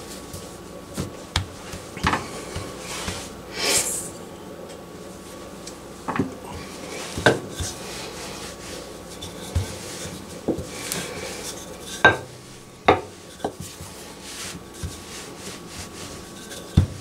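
Hands working a mass of pie-crust dough on a floured countertop: soft rubbing and pressing, with scattered sharp knocks and clicks and a brief hissing scrape about four seconds in.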